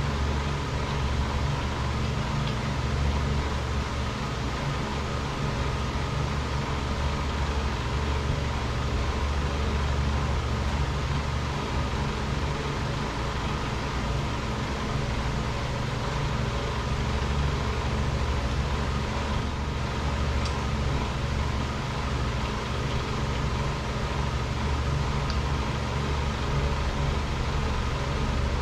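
Steady mechanical drone of machinery running constantly, with a strong low hum, and a couple of faint small clicks in the second half.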